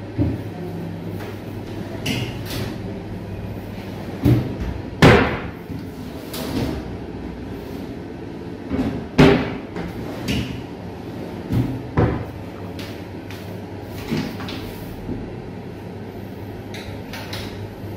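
Solid-wood kitchen cabinet drawers and hinged doors being pulled open and pushed shut, giving a series of wooden knocks and bumps. The loudest come about five and nine seconds in.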